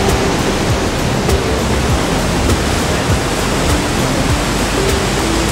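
Steady rushing of whitewater rapids on the Niagara River, with soft background music underneath.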